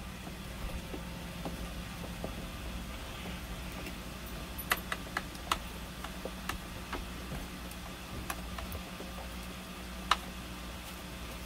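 A utensil clinking against a bowl several times while someone eats, sharp taps the loudest of them near the end, over a steady low hum.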